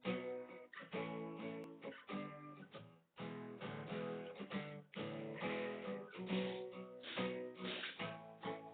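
Acoustic guitar strummed in a rhythm of repeated chords, with a brief break about three seconds in.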